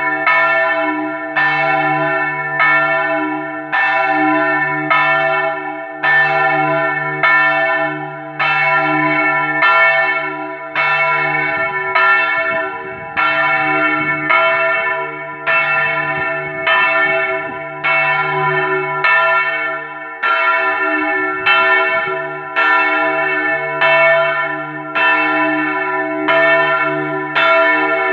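Large church bell, cast by Marinelli in 1876 and tuned to a slightly sharp E, swinging a distesa (full swing) with its clapper striking about once a second, each stroke ringing on into the next. This is the call to the festive Mass.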